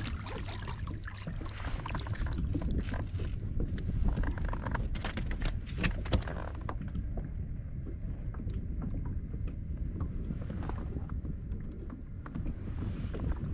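Steady low wind rumble on the microphone and water around a kayak, with a hooked crappie splashing at the surface and sharp splashes and clicks over the first six seconds, then calmer.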